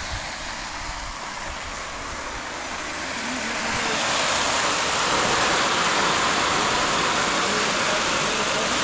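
Loose grain pouring from a pickup truck's bed into a sack held at the tailgate: a steady hiss that grows louder about four seconds in and then holds.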